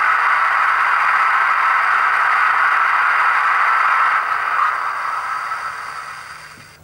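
Class 55 Deltic sound file (Olivia's Trains sound on a LokSound 3.5 decoder) playing through the Bachmann model's bass-reflex speaker in the fuel tank: the stationary locomotive's engines idling as a steady hissing rumble with faint high whistles, dying away over the last three seconds or so.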